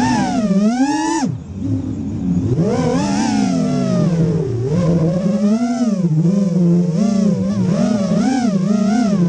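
FPV racing quadcopter's brushless motors whining, the pitch swinging up and down constantly with the throttle; about a second in the pitch drops sharply as the throttle is cut, then climbs back.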